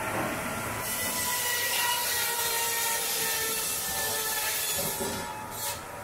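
Belt-driven circular saw of a vintage sawmill cutting a board: a high hissing whine under load that starts about a second in and dies away near five seconds.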